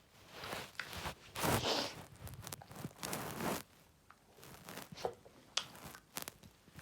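Faint, irregular rustling and crinkling handling noises in short scattered bursts, with a couple of sharper clicks near the end.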